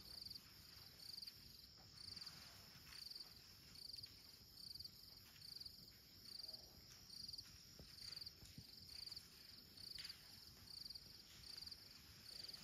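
A cricket-like insect chirping faintly in a steady rhythm, about three short, high trills every two seconds.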